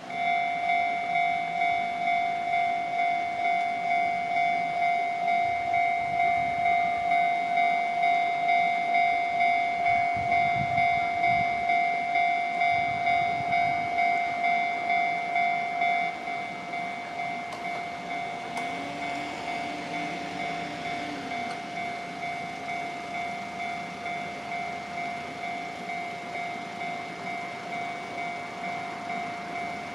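Japanese level-crossing alarm bell starting to ring, a steady electronic ding pulsing about twice a second. About 16 s in it becomes quieter and keeps ringing, while a JR Chuo Line train passes over the crossing a few seconds later.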